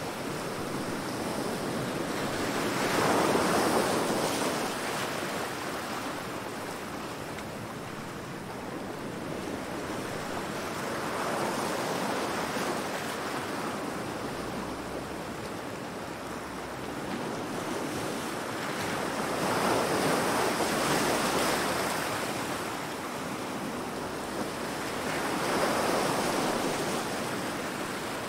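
Waves-hitting-rocks sound effect: heavy surf washing in, swelling and fading in four big surges.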